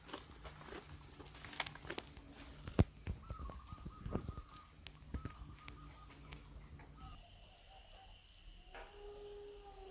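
Footsteps and rustling through forest undergrowth, with twigs and leaves crackling and one sharp crack about three seconds in, over a steady high insect drone. A few short, faint animal calls follow in the second half.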